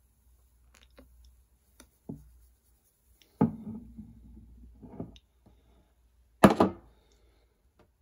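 Clicks and knocks from a ceramic cup and a stainless-steel milk jug handled on a kitchen counter while a latte is poured. Two louder knocks come about three and a half and six and a half seconds in.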